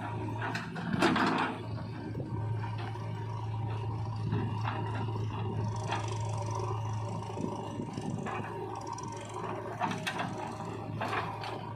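A machine's motor running with a steady low hum, with sharp mechanical clicks and knocks about a second in and again near the end.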